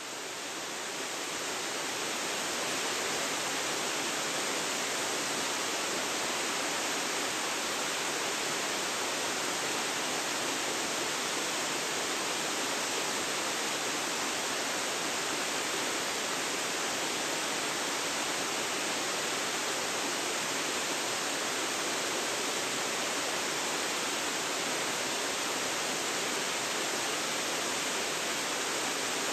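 Waterfall falling steadily: a dense, even hiss of rushing water with no breaks, fading up over the first couple of seconds.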